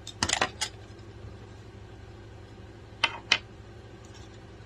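Hard plastic vacuum attachments being handled: a quick cluster of clicks and knocks near the start, then two sharp clicks about three seconds in, over a low steady hum.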